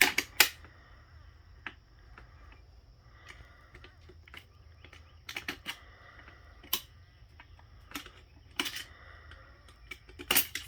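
Scattered sharp metallic clicks and clinks of steel transmission parts and hand tools being handled during a 4L65 automatic transmission teardown, the loudest right at the start and near the end.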